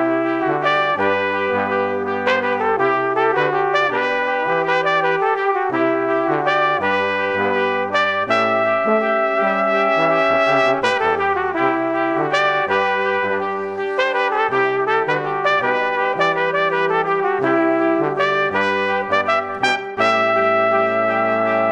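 Brass quartet music: two trumpets and two trombones playing held notes in close harmony, the chords shifting about every second.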